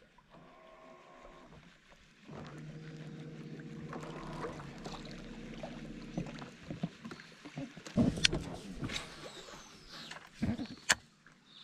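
Baitcasting reel winding in a lure, a steady whir for several seconds, followed by a few sharp knocks as the rod is swept back to set the hook on a Murray cod.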